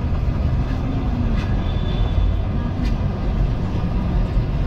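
Steady low rumble of city street ambience, with faint voices in the background and a couple of sharp ticks.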